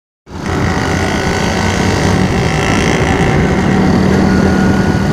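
Steady engine noise with a low hum and a faint high whine, starting abruptly just after the start and holding level.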